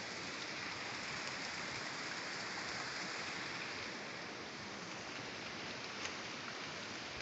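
Steady, even hiss of outdoor background noise, with a faint click about six seconds in.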